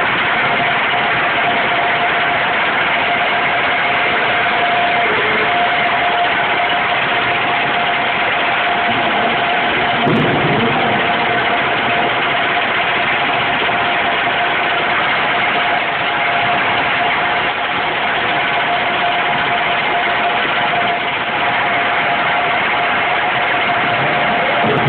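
Loud, steady forging-shop machinery noise with a constant whine running through it, and one short knock about ten seconds in.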